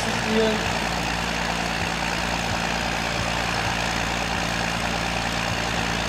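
John Deere farm tractor's diesel engine running steadily under heavy load as it drags a tractor-pulling brake sled.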